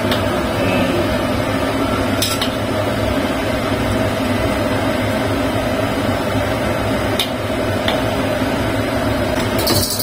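Metal ladle scooping and clinking against a steel wok as soy-sauce braising liquid is spooned over pigeons, with a sharp clink about two seconds in and two more around seven to eight seconds, over a steady hum.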